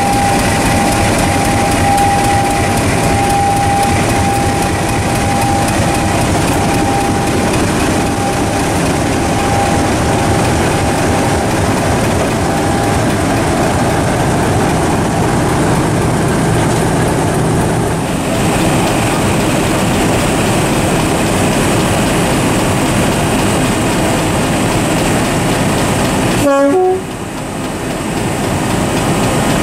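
British Rail Class 50 diesel locomotive 50015, its English Electric 16CSVT V16 engine running loud and steady as the locomotive moves slowly along the platform. A thin steady whine sits over the engine and fades out about halfway through. Near the end the sound briefly drops out and comes back.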